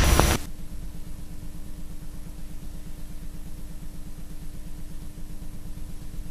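A loud burst of static cuts off suddenly about half a second in. It leaves a low, rapidly pulsing hum with a faint steady tone above it.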